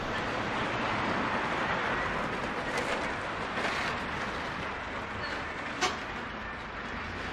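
City street ambience with light traffic: a vehicle passes, its tyre and engine noise swelling over the first few seconds and fading, followed by a single sharp knock about six seconds in.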